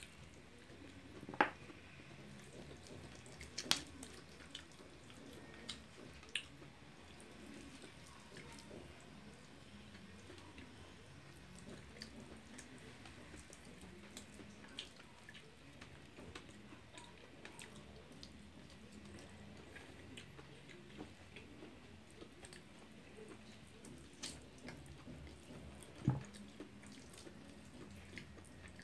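Eating sounds: steamed whole chicken pulled apart by hand and eaten, heard as quiet handling and mouth noises with a few sharp clicks, the loudest about a second in, near four seconds and near the end, over a faint steady hiss.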